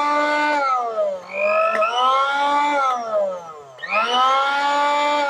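Motor of a repaired National Super blender base, run with no jar fitted, whining as it is switched on and off: it spins up, runs, then winds down, about every two seconds, with a click near the middle. The motor, dead before the repair, now runs normally again.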